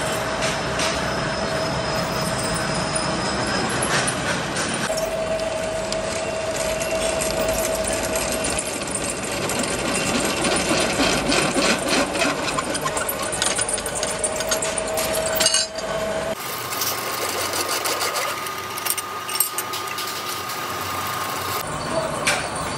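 Pillar drill press boring through steel hub lock nut plates: the motor runs with a steady tone while the bit cuts, with steel chips clicking and rattling. The sound shifts abruptly about sixteen seconds in and back near the end.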